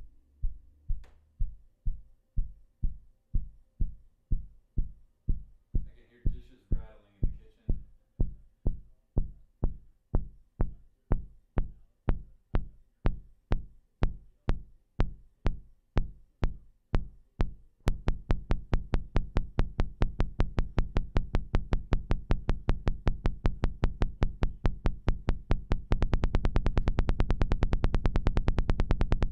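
Minimoog Model D synthesizer bass played through an SVS PB-4000 subwoofer: deep pulses repeat nearly three times a second, growing steadily brighter. About two thirds of the way in the pulses come about twice as fast, and near the end they speed up further and blur into one continuous buzzing bass tone.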